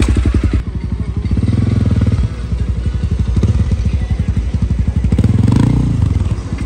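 Honda CRF300L's single-cylinder engine through an aftermarket exhaust, revving as the motorcycle pulls away and rides off, the revs rising and falling several times.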